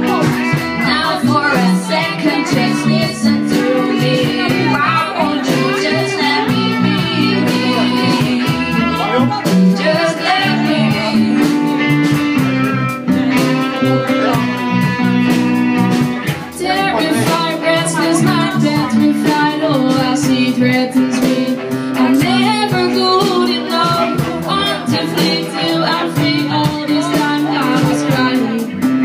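Live rock band playing: a woman singing over electric guitars, bass and a steady drum beat.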